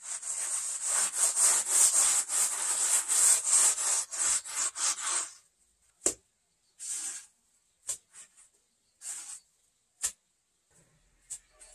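Gloved hand rubbing and sweeping gritty clay-sand across flat gudeul stone slabs. A quick run of scraping strokes lasts about five seconds, then a few single scrapes and sharp clicks follow.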